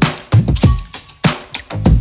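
Electronic music with a punchy drum-machine beat: deep kick drums and sharp snare hits roughly every third of a second, over bass.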